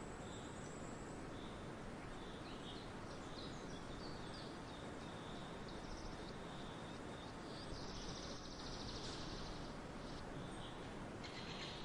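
Small birds chirping with short, high calls over a steady background hiss, with a longer, harsher rapid call of about a second and a half some eight seconds in.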